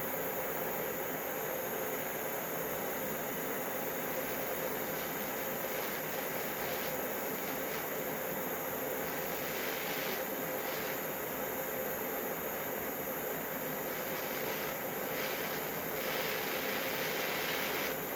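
Gas torch flame hissing steadily as it heats a silver-solder joint on a sawmill band blade.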